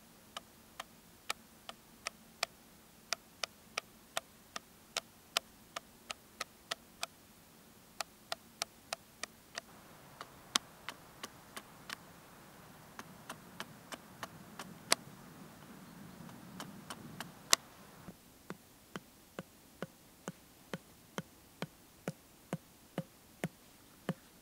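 Small hatchet striking wood in a long series of sharp knocks, about two a second, with a faint rustle and scraping in the middle stretch.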